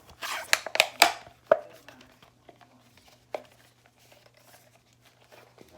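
Sharp handling noises: a quick run of clicks and knocks in the first second and a half, then one more about three seconds in.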